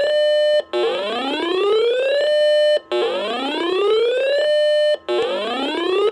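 Electronic whooping alarm tone that rises in pitch, holds a steady note for about half a second, then cuts out briefly, repeating about every two seconds. It plays as an alert between weather warning broadcasts.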